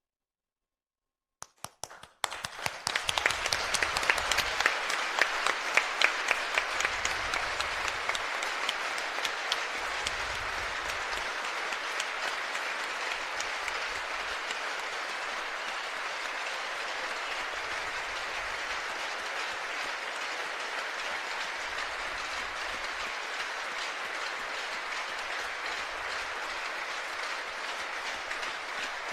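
Large arena crowd applauding: a few scattered claps about a second and a half in, swelling within a couple of seconds into full, sustained applause that holds steady.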